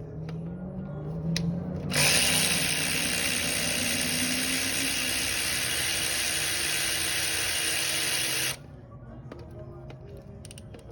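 A power tool running: a low hum rising in pitch, then a loud, steady rushing noise from about two seconds in that cuts off abruptly some six seconds later.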